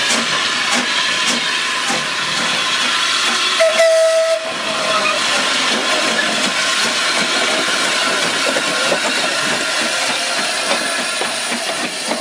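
Hunslet Austerity 0-6-0ST saddle-tank steam locomotive working past with steady steam hiss, and a short whistle toot about four seconds in.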